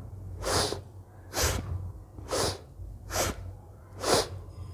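Forceful breaths through the nose in bhastrika pranayama, at a slow, even pace: five sharp breaths, about one a second.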